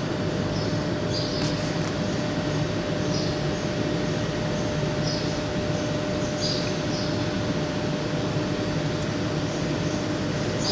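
Montreux-Oberland Bernois metre-gauge electric train running at the platform: a steady electric hum with a held tone, and short high squeaks every second or two.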